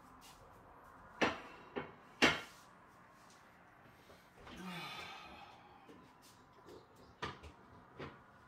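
A few sharp knocks and clicks of hard objects being handled, the two loudest about a second apart near the start and two softer ones near the end. Around the middle comes a short breathy noise with a low falling sound.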